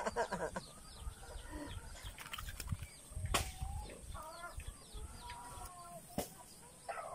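Chickens clucking at intervals, with two sharp slaps and low handling rumble.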